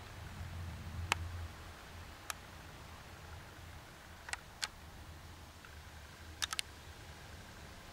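Low room hum with a few small sharp clicks at irregular spacing, ending in a quick cluster of three late on. These are handling noises from a handheld camcorder.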